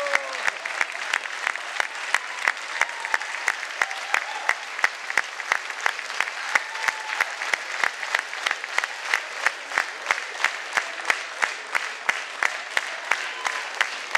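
Theatre applause from the audience and the cast on stage, with sharp claps keeping a steady rhythm of about three a second over the general clapping.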